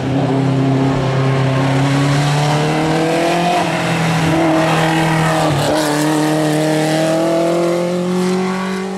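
Competition car's engine pulling hard uphill, its note climbing steadily, breaking briefly about halfway through as it changes gear, then climbing again.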